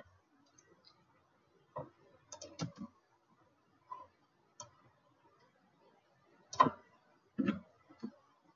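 Scattered clicks from a computer keyboard and mouse: single clicks and short runs with quiet pauses between, the sharpest about two-thirds of the way through.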